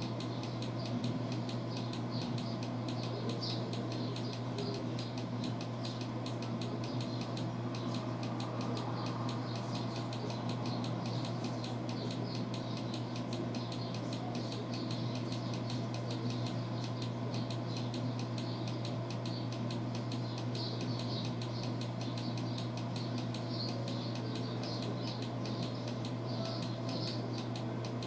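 Steady low electrical hum with a fine, even crackle over it: the noise floor of a computer microphone recording while nothing else sounds.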